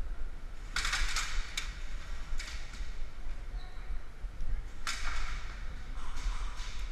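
Airsoft guns firing in several short bursts of rapid shots, with steady low rumble from wind or handling on a body-worn camera.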